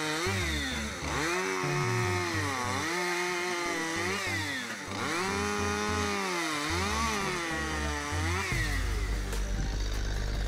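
Chainsaw cutting through logs one after another: its engine pitch sags each time the chain bites into the wood and rises again between cuts. About eight and a half seconds in, it gives way to a steady low engine drone.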